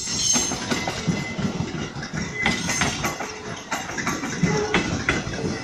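Ex-JR East 203 series electric commuter train passing close by, its wheels clacking over the rail joints, with brief high-pitched squeals now and then.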